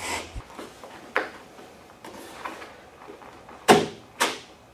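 Laminate plank being pressed and knocked down by hand into its drop-and-lock joint: a few sharp wooden knocks with light scraping between, the two loudest close together near the end.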